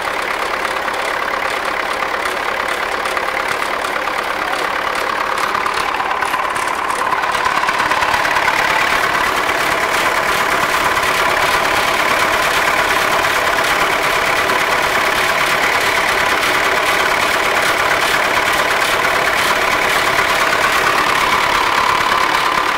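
MTZ-80 tractor's four-cylinder diesel engine idling steadily. About eight seconds in the engine speeds up a little and holds at the higher speed.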